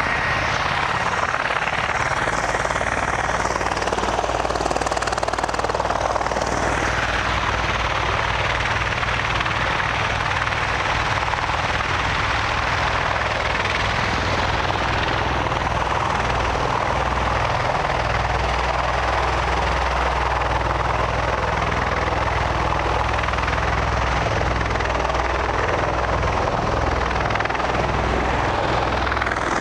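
Bell Boeing V-22 Osprey tilt-rotor in helicopter mode, its two big proprotors and turboshaft engines running with a loud steady roar and a low rotor beat. The beat grows stronger from about halfway through as the aircraft lifts off.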